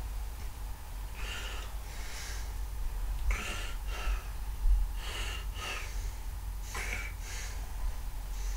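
Breathing close to the microphone: short, breathy in-and-out sounds that come in pairs about every second and a half.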